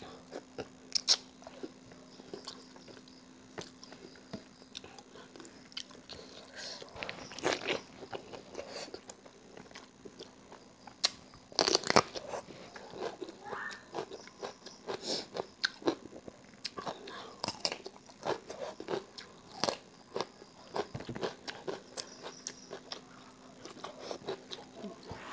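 Close-up mukbang eating sounds: a woman chewing and biting food eaten by hand, with many short mouth clicks and crunches. The loudest bites come about twelve seconds in.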